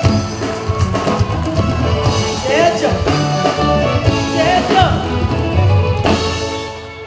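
A live band with drum kit and keyboards plays, with a woman's voice singing over it. The music drops away near the end.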